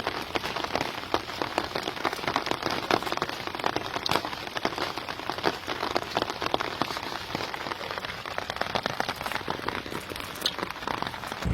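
Steady rain falling, a dense patter of many small drop hits.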